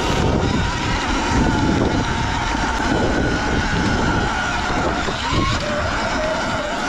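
Sur-Ron electric dirt bike's motor whining steadily under load as it climbs a dirt hill, over a heavy low rumble of wind buffeting and tyres on dirt.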